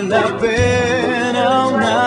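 Music with a singing voice over a steady accompaniment.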